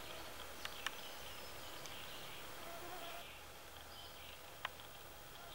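Faint whine of mosquitoes, with a few short sharp clicks.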